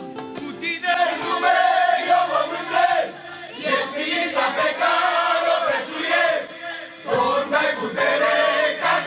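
Live manele band music: a wavering, ornamented lead melody with a crowd's voices and hand-clapping.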